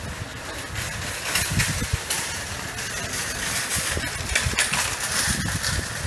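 Motorboat engine running under way, with wind buffeting the microphone in irregular low thumps.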